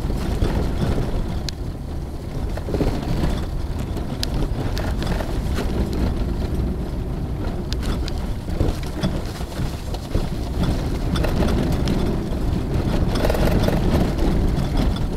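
Four-wheel drive vehicle heard from inside the cabin while driving on an unsealed dirt track: a steady low rumble of engine and tyres, with a few sharp rattles or knocks.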